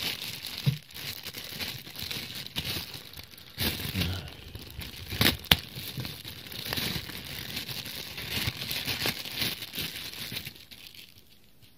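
Thin clear plastic bag crinkling and rustling as it is handled, opened and a coiled power cord is pulled out of it, with two sharp snaps a little past five seconds in. The rustling dies away about a second before the end.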